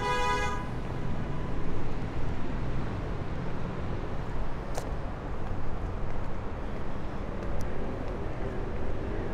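Steady low outdoor rumble of distant road traffic. There is a brief pitched call right at the start and a single faint click about five seconds in.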